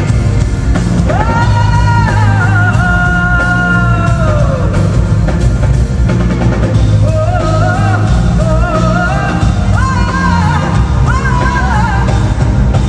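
Live band music at loud concert level, with heavy bass and drums under a sung melody. The voice holds long, slowly sliding notes, then moves into shorter, wavering phrases later on.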